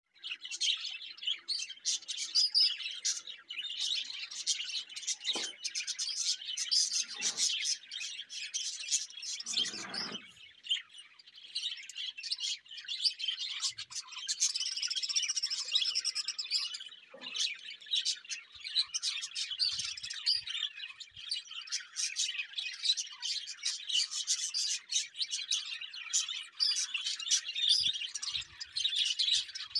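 Songbirds chirping and twittering without pause, many quick overlapping calls, with a few lower calls in the first third.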